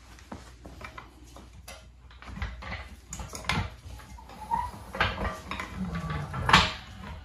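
Two 4-ton steel hydraulic floor jacks being let down, their lift arms lowering with a run of metallic clicks, clanks and short squeaks. The loudest clank comes about six and a half seconds in.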